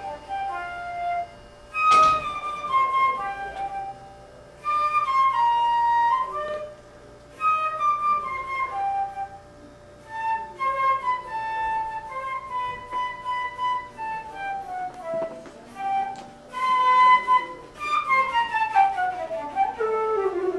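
Music: a solo flute-like melody of held notes stepping up and down, broken by a few short pauses.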